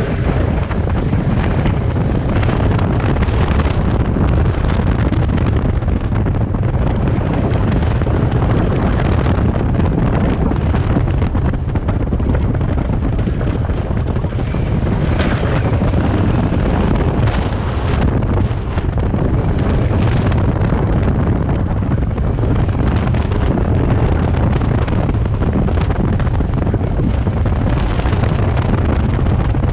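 Kawasaki Versys 650's parallel-twin engine running steadily under way, with heavy wind buffeting on the microphone.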